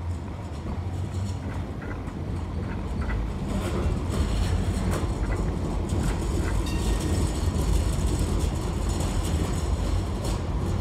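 Dresden low-floor city tram rolling past on curved street track: a steady low rumble of wheels on rail that grows louder a few seconds in, with scattered clicks and a high thin whine joining about seven seconds in.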